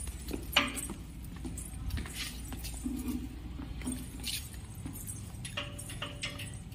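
A bunch of keys jangling, with scattered clicks and footstep scuffs, over a steady low rumble.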